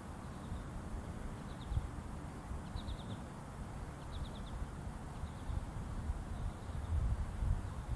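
A small bird chirping repeatedly in quick runs of three or four short high notes, over a steady low rumble.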